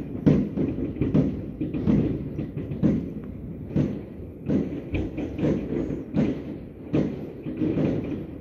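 Fireworks going off all over a city in a dense barrage: a continuous, irregular string of bangs and thuds, about two a second.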